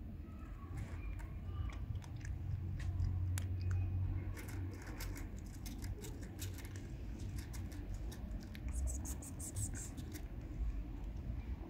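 Domestic cat crunching dry kibble from a plate: a quick, irregular run of crisp crunches, busiest in the second half, over a low rumble.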